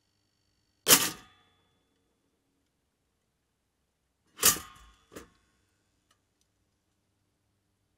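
Toaster lever clacking: one sharp clack with a short ring about a second in, then a second clack about three and a half seconds later, followed quickly by a smaller click.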